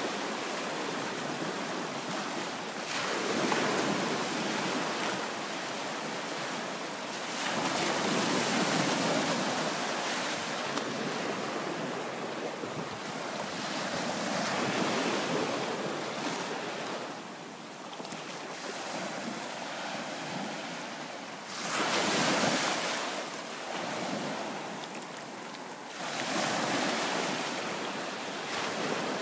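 Small bay waves breaking and washing up onto a sandy beach, the wash swelling and easing every few seconds.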